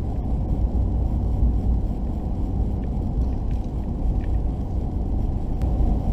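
Steady low rumble of a vehicle driving on a gravel road, with tyre and engine noise heard from inside the cab and a few faint ticks.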